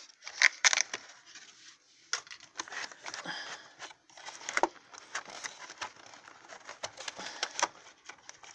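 Cardboard toy box and its packaging being handled and worked open by hand: irregular crackling and crinkling with small clicks, pausing briefly now and then.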